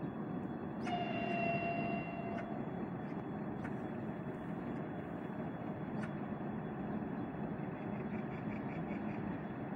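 Steady outdoor rumble and hiss of open-air ambience. A distant horn sounds once about a second in and holds for about a second and a half.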